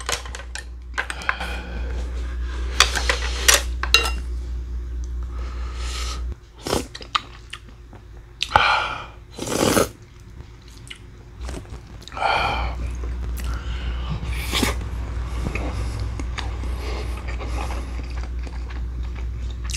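Close-up eating sounds: a man chewing food, with scattered clicks and scrapes of chopsticks and utensils against bowls and plastic containers. A steady low hum runs underneath and drops away for several seconds midway.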